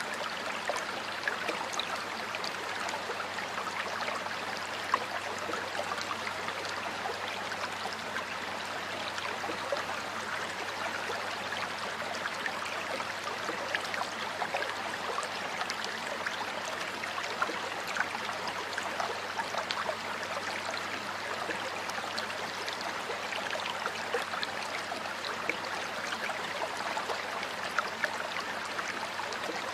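Water flowing in a stream: a steady rush with many small splashes and drips.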